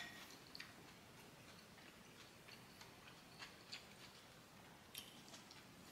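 Near silence with faint, scattered soft clicks: quiet chewing and mouth sounds, and wooden chopsticks picking at food on a plate.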